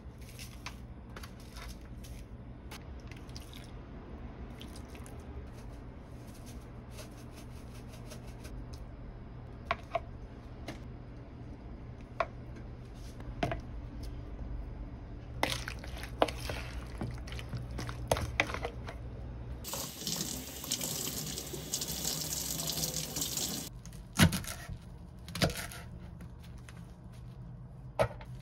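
Kitchen tap running for about four seconds, about two-thirds of the way through, between scattered light knocks and clinks of a spoon on a mixing bowl as seasoning goes onto raw chicken. A steady low hum sits underneath.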